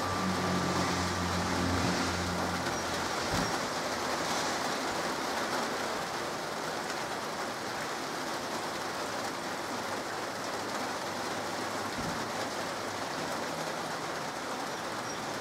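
Steady rain falling on pavement and puddles, an even hiss. A low hum is heard in the first few seconds and fades out.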